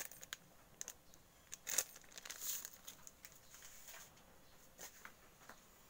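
Faint crinkling and crackling of a small plastic seasoning sachet being squeezed and shaken, with scattered clicks; the loudest crackles come about two seconds in.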